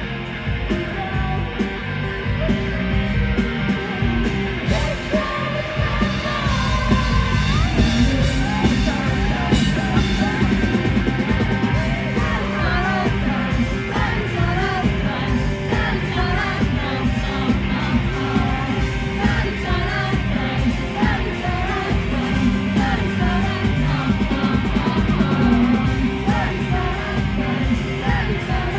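Live rock band performing: drums, bass and guitars under a sung lead vocal, loud and dense throughout.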